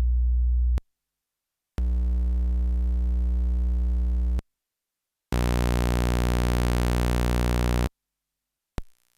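Cre8audio Capt'n Big-O analog Eurorack oscillator sounding one steady low note, stepped through its basic waveforms with short silences between. Each note is held about two and a half seconds and is brighter and buzzier than the last, and a short blip comes near the end.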